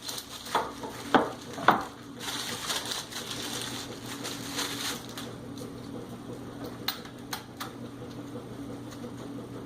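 Sharp clicks and light knocks of a metal scope mounting ring being handled and fitted onto a rifle's rail, several in the first two seconds and a few more later, with rustling handling noise between them and a steady low hum underneath.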